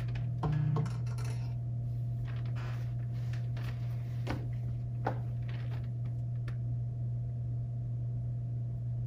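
Steady low hum of room tone with a few faint clicks and taps, and a brief murmured vocal sound about half a second in.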